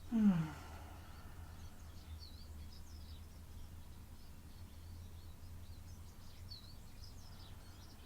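Faint birds chirping now and then over a low steady hum. Right at the start comes a short voice sound that falls in pitch.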